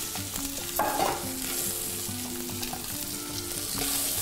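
Pieces of game meat sizzling in hot fat in a frying pan as they are seared, with a short knock or clink about a second in.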